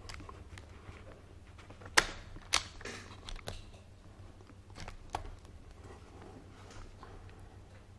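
Reloading clicks of a BSA Scorpion SE .22 PCP air rifle, the bolt worked to chamber the next pellet from its 10-shot magazine: two sharp clicks about two seconds in, half a second apart, then a few softer clicks.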